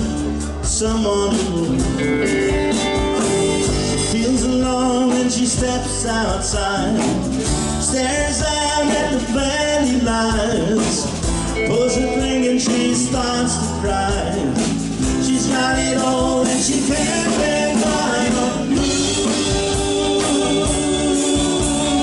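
Live country band playing a song: drum kit, electric and acoustic guitars and bass, with a lead vocal singing over them.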